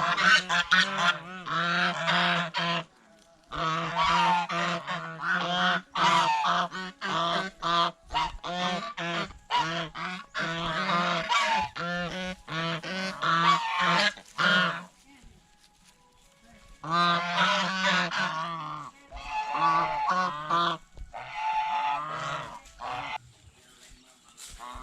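Domestic white geese honking, several calling over one another in rapid runs of honks. The calling breaks off for a couple of seconds a little past the middle, then picks up again and thins out near the end.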